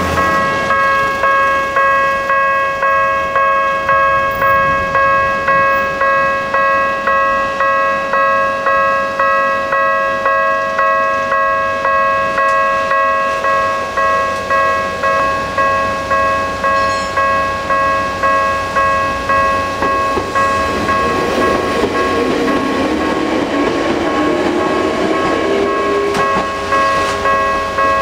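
Japanese railway level-crossing warning bell ringing steadily at about one and a half strokes a second. An approaching train's rising whine joins it in the second half.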